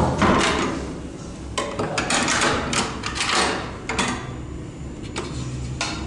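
A door shutting with a bang, followed by a run of rattling knocks and clicks about a second and a half later.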